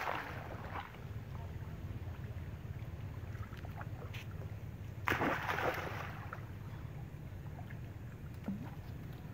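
Water splashing as a swimming monkey churns shallow water, once at the start and again about five seconds in, over a steady low rumble.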